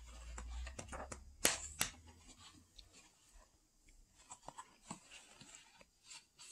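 Page of a hardcover picture book being turned: quiet paper rustling and crinkling, with two sharper crackles about one and a half and two seconds in and a low rumble over the first two seconds, then scattered faint taps and rustles as the book is handled.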